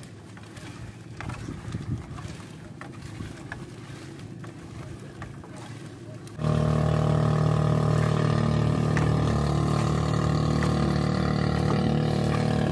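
Small fishing boat's engine comes in abruptly about six seconds in and runs loud and steady, after a quieter stretch with a few faint clicks.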